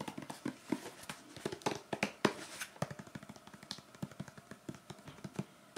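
Fingertips and painted fingernails tapping on a cardboard box: quick, irregular light taps, several a second, as ASMR tapping.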